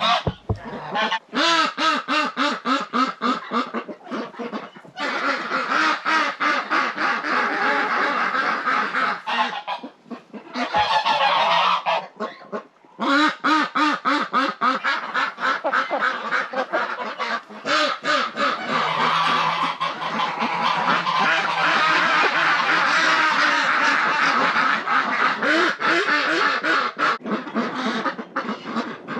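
A flock of domestic ducks and geese calling together, quacking and honking in a dense overlapping chorus, with a few short breaks.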